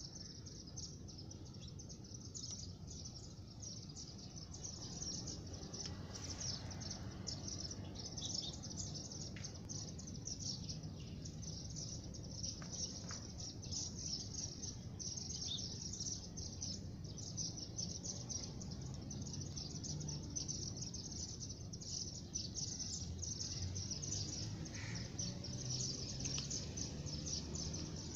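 Many small birds chirping continuously in rapid, overlapping short high notes, over a steady low background rumble.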